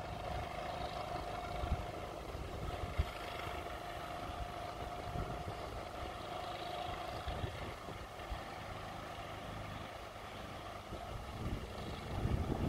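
A distant engine running with a steady hum, which stops about halfway through, under uneven wind buffeting on the microphone.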